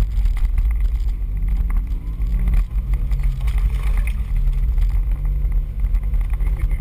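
4x4's engine running as it drives fast over a rough dirt trail: a steady low rumble whose pitch shifts a little, with many short knocks and rattles from the bumps.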